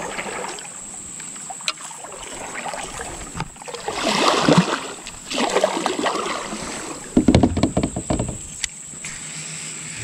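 A kayak being paddled on a river: water swishing with each paddle stroke, three strokes in the second half, with a few light knocks in between.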